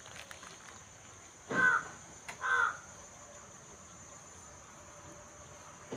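A crow cawing twice, two short calls about a second apart, over a faint steady high-pitched tone.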